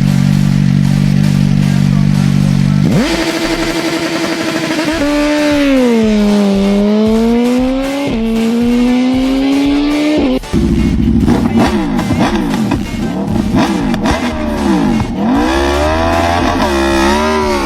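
Kawasaki Ninja ZX-10R inline-four engine revving. A steady low note gives way about three seconds in to a sudden jump to a high held pitch, and the revs then fall and rise again. In the second half, several overlapping engine notes sweep up and down.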